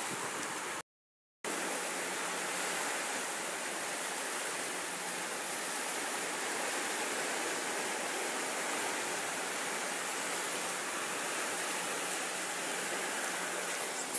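Steady outdoor wash of noise with no distinct events. It cuts to silence for about half a second about a second in. A faint steady low hum runs under it afterwards.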